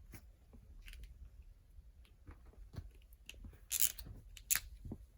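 Drawing and colouring on paper: short scratchy pen strokes and light taps, with two louder, hissier strokes about four seconds in.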